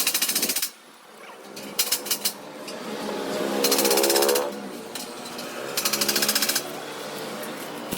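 Welding in short bursts of rapid crackling buzz: four separate tacks, each under a second long. A pitched hum rises in between.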